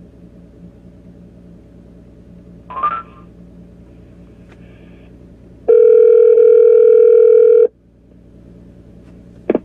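Telephone ringback tone of an outgoing call ringing at the far end, not yet answered: one steady two-second ring about six seconds in. A brief higher beep comes about three seconds in, and a sharp click near the end, over a low steady cabin hum.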